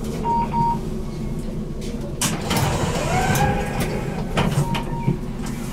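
BN GTL8 tram 3045: a short double beep near the start and again, fainter, near the end, with a few clunks and a whine rising in pitch a little after halfway, over a steady low running rumble.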